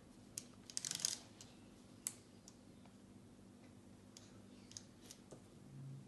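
Soroban abacus beads clicking as they are flicked with the fingers: a quick run of clicks about a second in, then scattered single clicks. A short low hum near the end.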